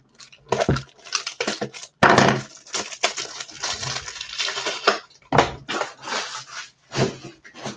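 Plastic and cardboard packaging crinkling and tearing in irregular rough bursts as a box of trading cards is opened. The loudest stretch starts about two seconds in.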